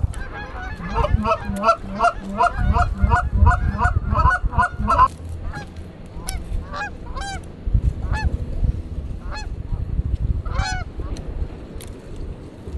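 Canada geese honking in flight: a quick run of honks, about two or three a second, for the first five seconds, then scattered single honks.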